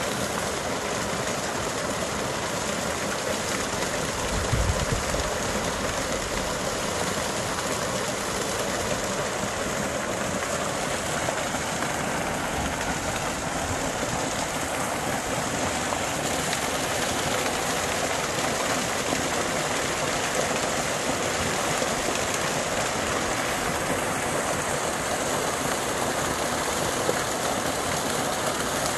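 Creek running high with snowmelt, a steady rush of water. A brief low thump about four and a half seconds in.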